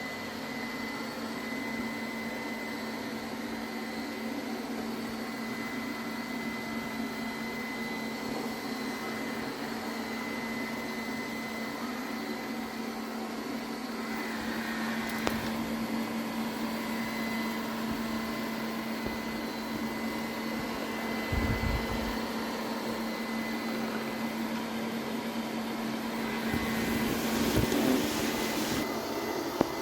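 Robot vacuum cleaner (Philco PAS19B) running with a steady motor hum and a thin high whine. There are a few brief knocks partway through, and the noise swells for a couple of seconds near the end.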